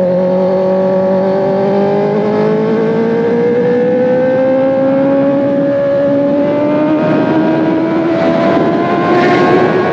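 Kawasaki ZX-10RR inline-four engine pulling under steady throttle, its pitch rising slowly as the bike gains speed in one gear. A brief rush of noise comes about nine seconds in.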